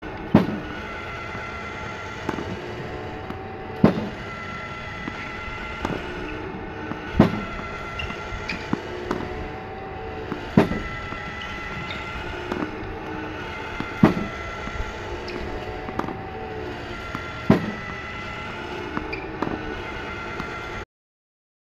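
Lobster Elite 2 tennis ball machine firing balls, set for maximum underspin: a sharp pop with each launch, six times at an even pace of about one every three and a half seconds, over the steady whir of its spinning launch wheels. Fainter knocks fall between the launches.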